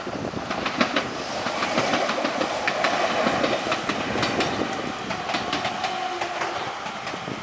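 An Enshu Railway electric train passing over the level crossing, its wheels clacking over the rail joints in a fast run of sharp clicks that is loudest in the middle and eases off near the end.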